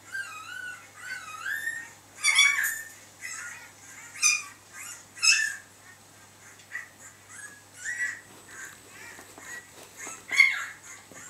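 Dogs whimpering: a run of high, wavering squeaks and whines in short bursts with brief gaps, loudest about two seconds in and again near the end.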